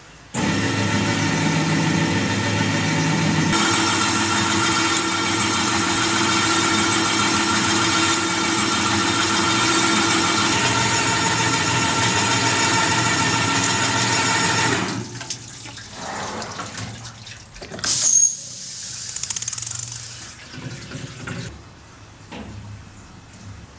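REMS Unimat 75 thread-cutting machine running, a loud steady motor whine with several steady tones that shifts slightly a few seconds in and stops about fifteen seconds in. Near the end a sharp click is followed by a brief high hiss.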